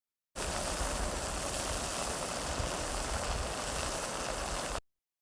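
Waterfall sound effect: steady rushing water. It starts abruptly about half a second in and cuts off suddenly just before the end.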